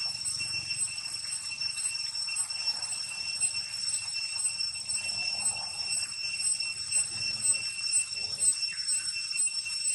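A steady chorus of insects: several high-pitched tones that pulse evenly, over a faint low rumble.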